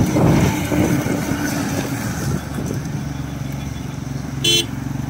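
Diesel bus engine passing close while it takes a hairpin bend, loudest in the first couple of seconds, then settling into a steadier engine hum as it pulls away and other vehicles come on. A short vehicle horn toot about four and a half seconds in.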